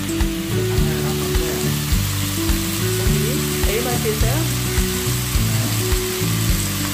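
Pork belly and mushrooms sizzling steadily on a round pot-lid griddle over a portable gas burner, with background music carrying a steady beat.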